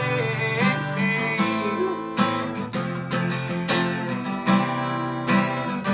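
Acoustic guitar strummed in a steady rhythm through an instrumental break between sung lines.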